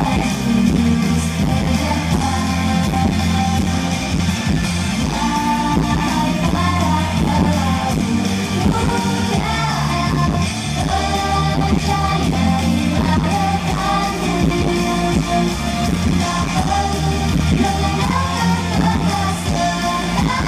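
Live pop music through a PA: a girl group singing together into microphones over a loud band backing with keyboards and a steady beat.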